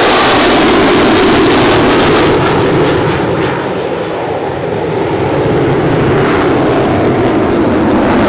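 Jet engine of an F-35A Lightning II running loud and steady in flight, easing off slightly midway and building again near the end.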